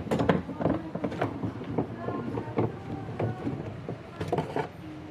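A run of irregular knocks and clicks.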